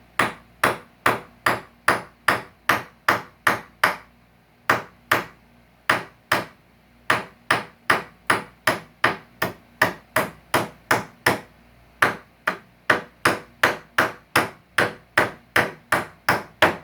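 Hammer tapping a tool held against a staple in salvaged couch wood, working the staple loose: a steady run of light strikes, about two to three a second, with a few short pauses.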